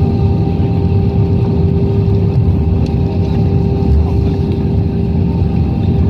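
Airbus A319 jet engines and airframe heard from inside the cabin over the wing as the airliner rolls along the runway after landing, spoilers raised: a loud, steady low rumble with a constant hum.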